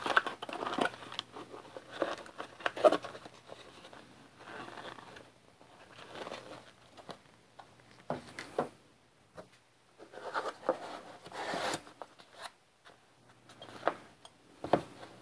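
Packaging being handled: a plastic bag crinkling and cardboard boxes rustling and scraping against each other, in irregular short bursts.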